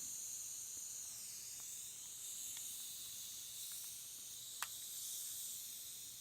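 Butane pencil-tip soldering torch flame hissing steadily, with a few faint ticks and one sharp click about four and a half seconds in.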